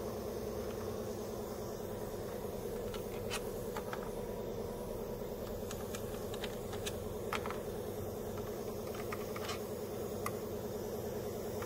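A steady low mechanical hum runs throughout, with scattered light clicks and taps as hands handle the plastic intake manifold and wiring in the engine bay.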